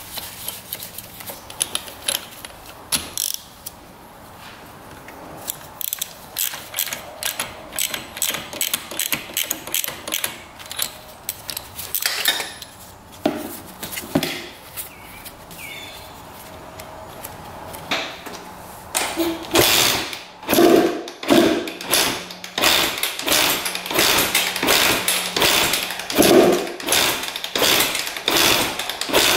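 A ratchet wrench clicks as the new spark plug is screwed into the cylinder head. About two-thirds of the way in, the Honda CR125's two-stroke engine is kick-started over and over with heavy, repeated strokes, without starting.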